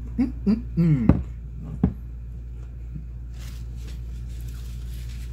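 A man making several short hummed 'mmm' sounds of enjoyment with his mouth closed and full of shrimp, the longest sliding down in pitch about a second in. After that only a steady low hum and a brief faint rustle.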